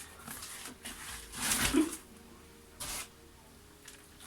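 Packaging being handled: rustling and scraping of foam and plastic wrapping, with a louder burst about a second and a half in and a short one near three seconds.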